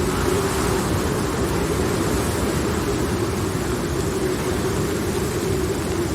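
Steady rain ambience, an even hiss with no thunderclap, over a low steady hum.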